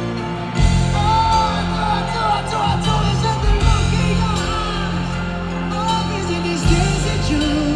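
Live pop band playing at a concert, with a singing voice and some crowd shouts over it; the bass and drums come in heavily about half a second in and drop back near the end.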